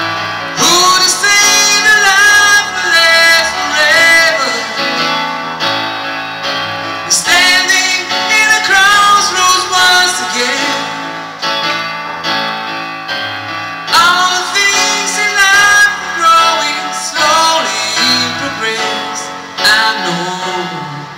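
Live instrumental break: electric keyboard chords under a harmonica solo, played in phrases with bending, wavering notes.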